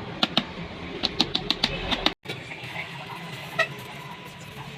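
A quick run of sharp taps or clicks, like hard objects knocking together, then after a brief break one more tap with a short ring, over a steady background hum.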